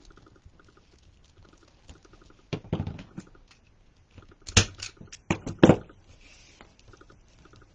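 Zip ties being cinched and trimmed with a zip tie tensioning gun and cutters: a cluster of clicks and snaps about two and a half seconds in, then louder sharp clicks around four and a half to six seconds in.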